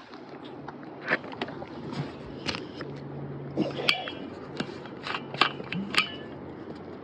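Fishing tackle being handled: a scatter of sharp clicks and light metallic taps, several close together in the second half.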